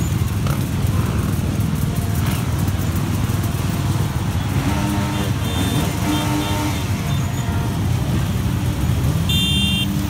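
Many enduro dirt-bike engines running together as the bikes ride slowly past in a line: a dense, steady motorcycle rumble. A run of short pitched toots comes around the middle, and a brief high tone near the end.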